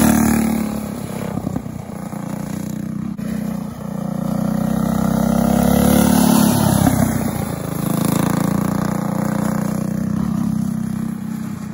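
Small engine of a winged mini sprint kart running at steady throttle as it laps a dirt oval, its note swelling as it passes close and fading on the far side of the track, three times.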